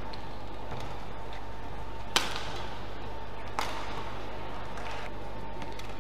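Badminton racket strikes on a shuttlecock in a rally: sharp cracks, the loudest about two seconds in and another about a second and a half later, with fainter hits around them. A steady hum runs underneath.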